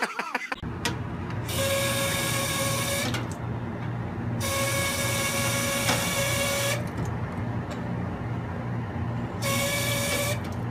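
Drinking fountain turned on three times: each run is a hiss of water with a steady whine from the valve, over a steady low hum from the fountain.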